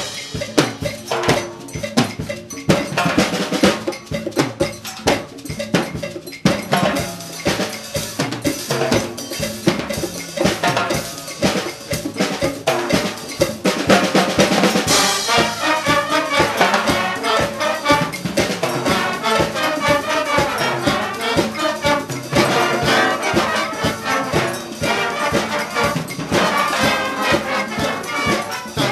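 Concert band playing, with a percussion-led passage of cowbell and drums for the first half. The full band, brass included, comes in about halfway through.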